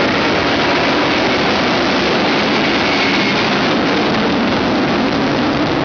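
Jet engine of a jet-powered school bus running at high power: a loud, steady rush of noise.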